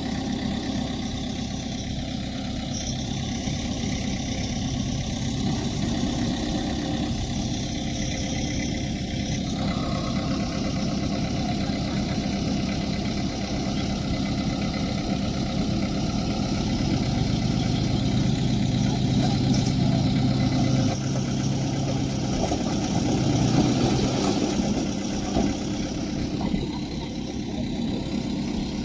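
Diesel engine of earthmoving machinery running steadily, with the engine note strengthening and growing louder for a few seconds past the middle, as under load.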